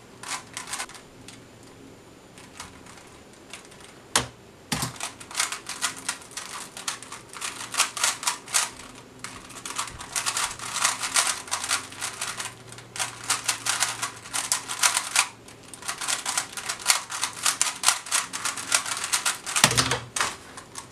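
Rubik's Cube being turned rapidly with one hand, a dense run of quick plastic clicks and clacks lasting about fifteen seconds. It begins after a sharp single click about four seconds in and ends with a low thud near the end.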